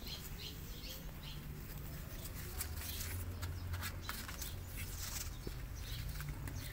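Kittens' paws and claws scratching and scrabbling on cardboard: an irregular run of small, sharp scratches and ticks over a low steady hum.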